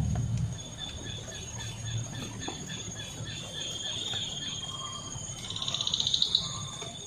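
Tropical insects droning steadily on two high notes, with a repeated short chirp about three times a second in the first few seconds. A rapid pulsing buzz, like a cicada's, swells for about a second near the end.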